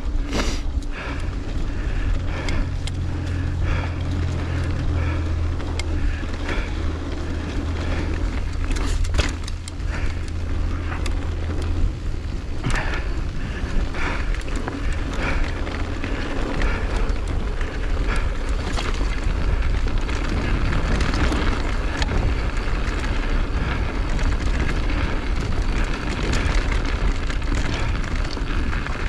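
Skis carving and scraping over snow at speed, a stroke with each turn, with wind rushing over the microphone. A steady low hum runs under it and stops about twelve seconds in.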